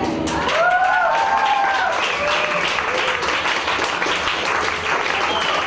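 Crowd applauding and cheering, with a few shouted whoops in the first two seconds.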